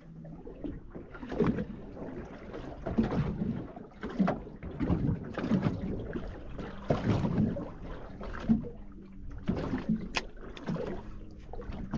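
Sea water slapping and sloshing against a small boat's hull in irregular splashes, one or two a second.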